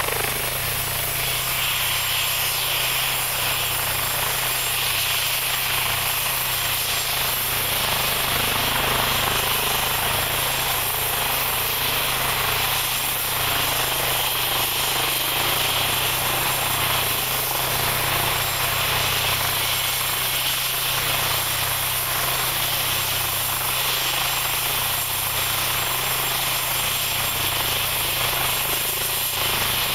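AgustaWestland AW139 helicopter's twin turboshaft engines and rotors running steadily on the ground, with no change in pitch or level.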